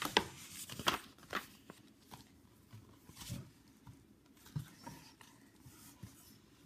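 Faint handling of a picture book: a few short paper rustles and soft clicks scattered through, loudest in the first second and a half.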